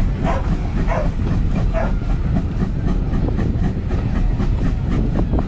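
Passenger train hauled by GWR 2-8-0T steam locomotive 4277 running, heard from one of its carriages: a steady rumble of wheels on rail, with a few clicks in the first two seconds.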